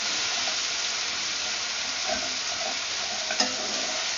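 Raw frog legs sizzling in hot oil in a sauté pan with onion and tomato, stirred with a spatula: a steady frying hiss, with a brief knock of the spatula against the pan near the end.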